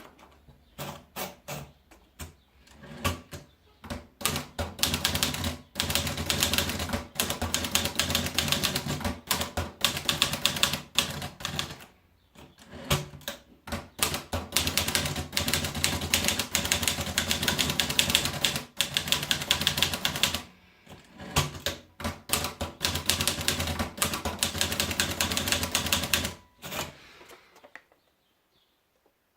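Olivetti Lettera 22 manual portable typewriter being typed on. The key strikes are sparse for the first few seconds, then fast and almost continuous with a few short pauses, and they stop a couple of seconds before the end.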